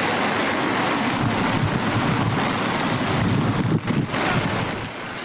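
Wind buffeting a phone's microphone over a steady rush of rain and floodwater, a dense rough noise that dips briefly a little before four seconds in.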